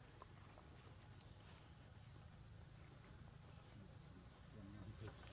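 Near silence, with a faint, steady, high-pitched drone of insects in the background.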